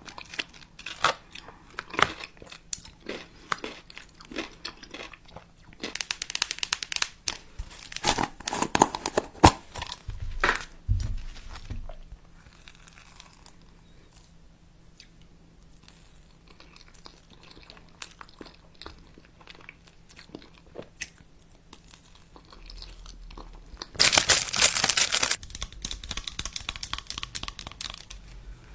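Close-up crunching and crinkling, like someone chewing crunchy food near the microphone: dense crackles at first, then a quieter stretch, then a louder burst of rustling noise lasting about a second and a half near the end.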